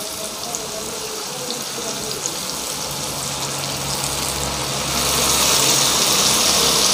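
Tamarind water being poured from a ladle into a frying pan of hot oil and sautéed turkey berries, the pan sizzling and hissing, growing louder about five seconds in.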